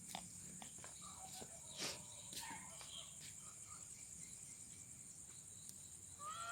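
Faint, steady high-pitched chorus of night insects, crickets by the sound of it, with a few scattered small clicks and chirps. A pitched call begins right at the very end.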